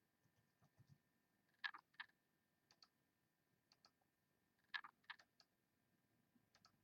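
Faint, scattered clicks from working a computer, a few at a time with pauses of a second or so between them; otherwise near silence.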